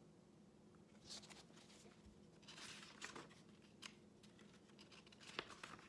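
Faint rustling of paper as a picture book's pages are handled and turned: a few soft swishes and a couple of light clicks over a low room hum.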